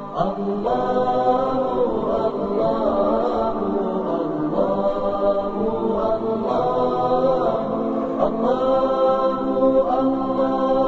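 Wordless vocal 'aahs' sung by layered voices in a choir-like chant: a series of long held notes that slide from one pitch to the next, with a new phrase beginning every second or two.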